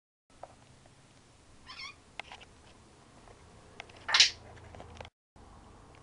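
African grey parrot vocalizing: a short warbling whistle about two seconds in and a few sharp clicks, then a loud, harsh call about four seconds in.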